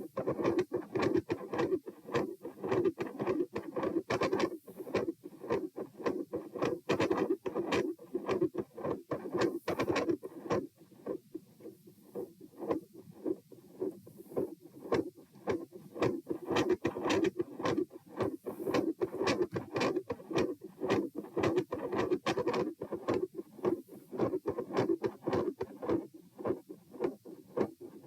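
Heartbeat recorded at the chest, with a continuous machinery-like murmur resembling that of a patent ductus arteriosus and a phasic second heart sound. The uploader suggests a left-to-right pressure flow. The murmur fades for a few seconds around the middle, then comes back louder.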